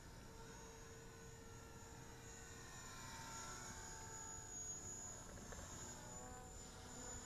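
Oxy 2 Stretch RC electric helicopter flying at a low head speed of 3,700 rpm, heard faintly from a distance: a steady rotor hum and motor whine whose pitch shifts slightly as it manoeuvres.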